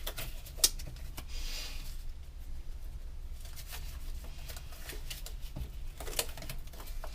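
Small handling noises: a short rustle and a few sharp clicks and taps, over a low steady hum.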